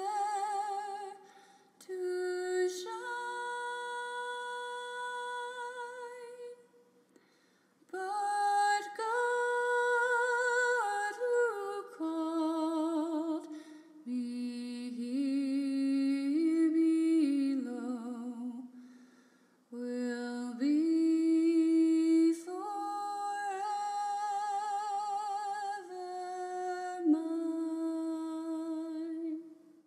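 A single voice humming a slow, wordless melody alone, in long held notes with vibrato, with short pauses between phrases.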